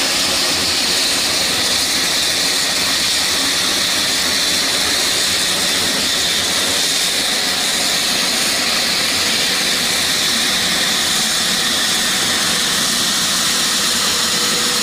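Hindustan-228 (Dornier 228) twin TPE331 turboprop engines running at taxi power: a steady, loud high-pitched whine over a rushing hiss of propeller and exhaust.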